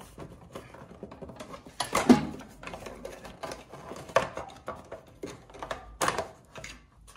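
Plastic engine cover on a Craftsman snow thrower being worked loose by hand: a run of plastic clicks, knocks and rattles against the engine and frame. The loudest knocks come about two, four and six seconds in.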